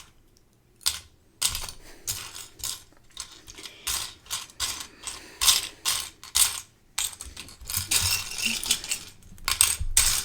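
Loose plastic Lego bricks clattering and clicking as a hand rummages through a pile of pieces, in irregular bursts after a brief quiet moment at the start.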